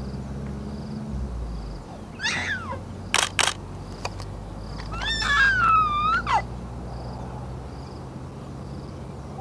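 Animal calls: a short falling call about two seconds in, then a longer wavering call about five seconds in. Two sharp clicks come in quick succession between them, over a steady low hum.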